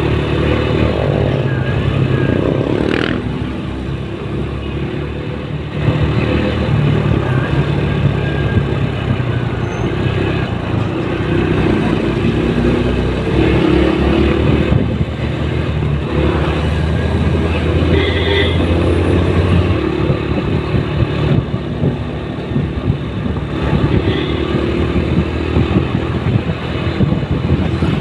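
Motorcycle engine running steadily while riding along a road, with wind and road noise and other traffic around.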